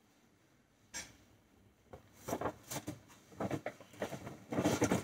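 Items being handled and shifted by hand: a single click about a second in, then rustling with light knocks and clatter that grows busier and loudest near the end.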